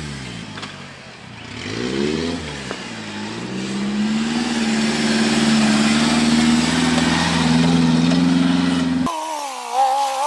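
Suzuki off-road 4x4's engine revving up and down as it drives through the mud, then running steadily at high revs as it passes close. About nine seconds in, the sound cuts abruptly to a different, higher-pitched engine whine that wavers in pitch.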